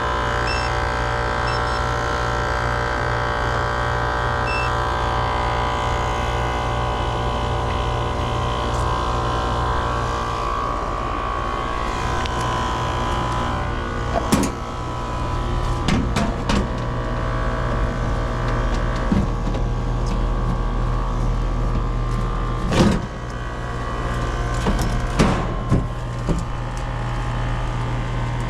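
Air-conditioner condensing unit running: the compressor and condenser fan motor give a steady hum with a whine above it, and the technician judges the fan motor to be about to fail. From about halfway, a scatter of sharp clicks and knocks.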